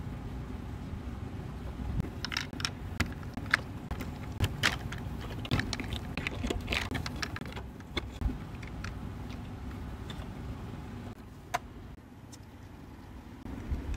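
Plastic toy Barbie vending machine being handled: scattered sharp clicks and light rattling as its accessory carousel turns and small plastic doll accessories shift, over a low steady rumble.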